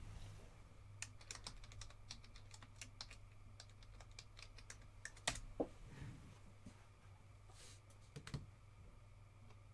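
Typing on a computer keyboard: a run of quick, irregular key clicks, then a few louder single taps about five and eight seconds in, faint over a low steady hum.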